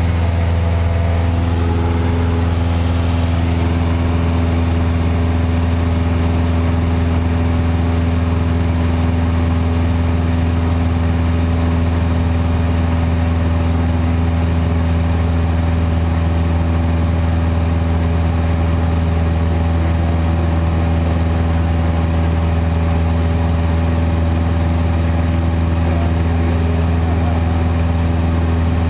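Cessna 172's piston engine and propeller droning steadily in cruise flight, heard inside the cabin: a loud, even low hum with steady tones above it.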